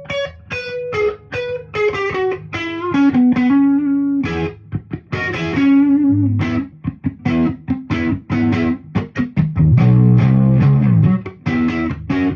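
Electric guitar played through a Dumble-style 100-watt amp, in a single-note lead line. It steps down through several notes, holds one for about a second, then plays a fast run of quick picked notes and moves to lower notes near the end.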